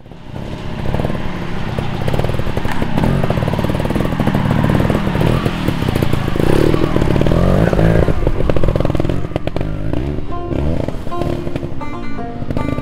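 Trials motorcycle engine fading in and revving up and down under short bursts of throttle. Music comes in over it from about ten seconds in.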